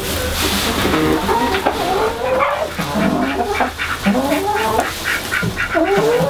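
Chickens clucking and squawking, several calls overlapping. One longer drawn-out call starts near the end.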